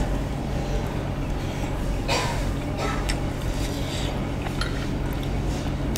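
Close-miked mukbang eating sounds: wet chewing and slurping of hotpot food, with a few short noisy sounds (the strongest about two seconds in) and light clicks of chopsticks and spoon on dishes, over a steady low hum.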